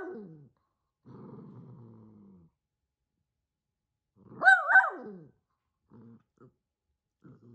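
Small white dog barking at nothing, with low growls in between. One loud double bark comes about halfway through and falls away in pitch; the owner puts this barking down to the dog being near senile.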